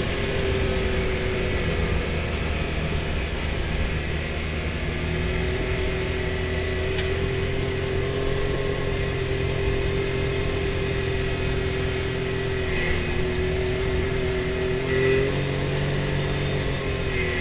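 Can-Am Maverick X3 side-by-side's three-cylinder engine running at a steady cruising speed along a gravel trail, with tyre and road noise underneath. Its pitch lifts briefly about fifteen seconds in.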